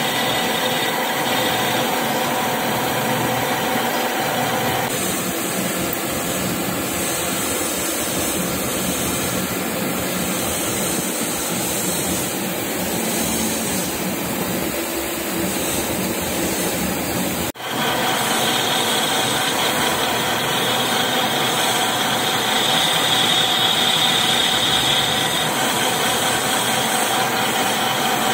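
Metal lathe running steadily, its spindle turning a small steel valve part against a cutting tool with coolant flowing, a steady machine hum with whining tones. The sound drops out for an instant about 17 seconds in and resumes.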